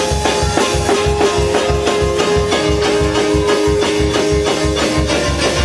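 Praise and worship music from a church band: a fast, steady beat of about four low pulses a second under long held chord notes.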